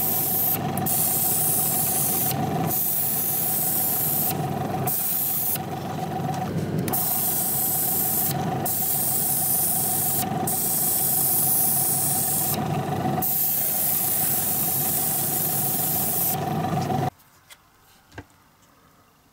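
Paint spray gun hissing as it sprays model parts, the spray breaking off briefly several times, over a steady hum with a faint whine. About seventeen seconds in it stops abruptly, and two small clicks follow.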